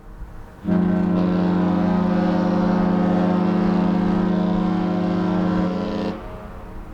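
The cruise ship Disney Treasure's horn sounding one long, steady blast. It starts about a second in and stops about six seconds in.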